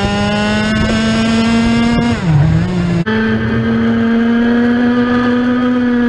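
IAME X30 125cc two-stroke kart engine at high revs, its pitch climbing slowly, then falling steeply about two seconds in as the throttle is lifted. About a second later the sound cuts abruptly to the engine running flat out again at a high, nearly steady pitch.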